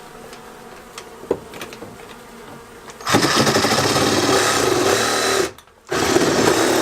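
Honey bees buzzing faintly with a few light clicks. About three seconds in, the motor of a homemade bee vacuum starts up loud and steady, cuts out for a moment about two seconds later, then starts again.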